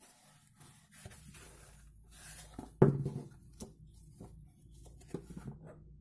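Hands handling and turning a fabric baseball cap: soft rustling and rubbing of the cloth, with one sharp knock a little under three seconds in and a few lighter taps after it.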